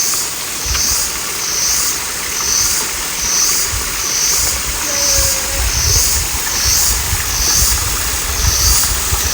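High-pitched insect chorus, such as cicadas, buzzing in steady pulses about one and a half times a second, over a low uneven rumble that gets stronger in the second half.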